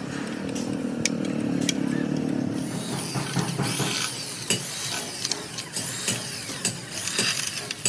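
Metal hand tools working on gearbox parts: a low hum at first, then from about three seconds in a run of quick metallic clicks and clinks, like a ratchet wrench and metal parts knocking together.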